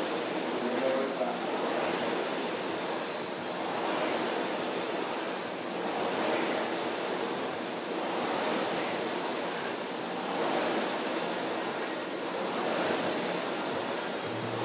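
Concept2 rowing machine's air-resistance fan flywheel whooshing, swelling about every two seconds as each stroke spins it up.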